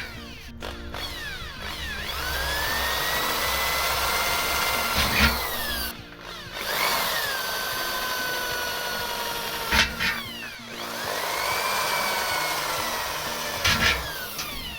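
Hand-held electric drill working on a steel pail can. Its motor whine sags and climbs again in repeated runs of about four seconds, with a sharp clack between runs.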